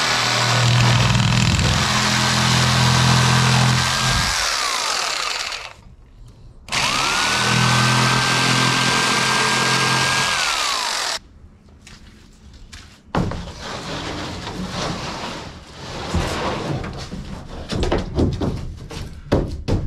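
Corded jigsaw cutting an OSB board in two runs of about five seconds each, its motor whine rising as it starts and falling away as it stops. Then quieter knocks and scraping as the cut board is handled and slid into place.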